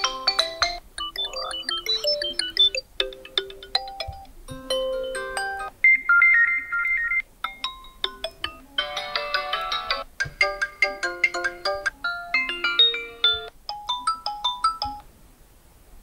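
Poco F4 phone's built-in ringtones previewed one after another through its speaker: about nine short tuneful melodies, each cut off after a second or two as the next one starts. The last one stops about a second before the end.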